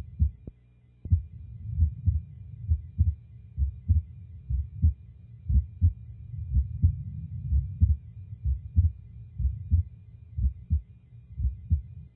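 Human heart sounds heard through a stethoscope: a steady lub-dub, pairs of low thumps a little over once a second, over a faint steady hum.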